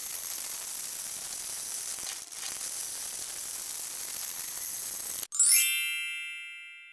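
Dry elbow macaroni pouring in a steady stream onto a pile in a glass dish, a fine hissing patter with a brief break about two seconds in. About five seconds in it cuts off and a single bright chime rings and fades away.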